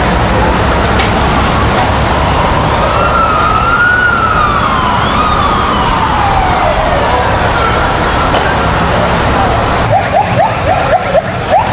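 Emergency vehicle sirens wailing in slow rising and falling sweeps over a steady rumble of engines and traffic. About ten seconds in, a siren switches to a fast yelp, several quick rising sweeps a second.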